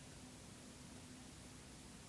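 Near silence: faint room tone, an even hiss with a faint steady hum that stops just before the end.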